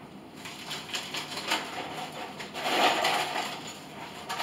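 Plastic snack bag crinkling and rustling as it is handled and shaken out over a blender jar, with a few light clicks. The loudest rustle comes a little under three seconds in.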